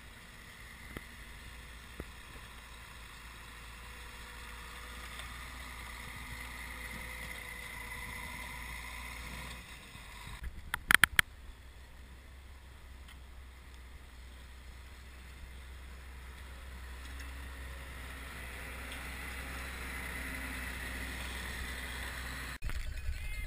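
Tracked snow groomer (snowcat) running while it pushes snow with its front blade, its engine note wavering and growing louder as it drives close by near the end. A few sharp clicks come about eleven seconds in.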